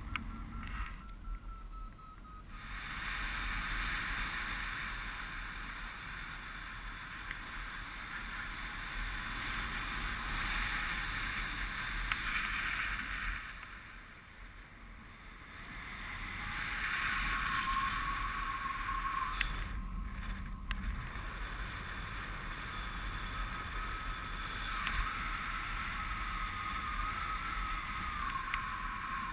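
Wind rushing over the camera microphone of a paraglider in flight, swelling and fading, with a dip about halfway through. A thin wavering whistle comes and goes over it in the second half.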